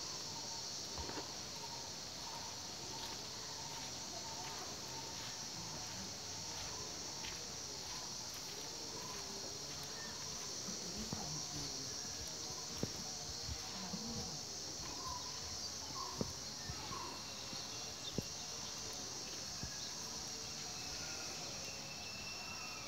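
Insects droning in a steady, high-pitched chorus.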